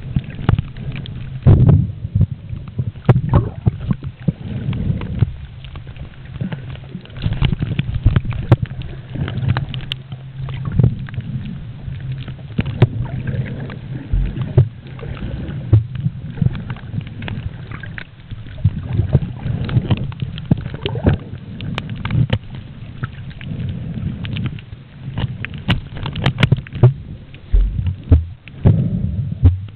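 Muffled underwater noise picked up by a submerged camera: a low, uneven rush of moving water with many irregular knocks and clicks.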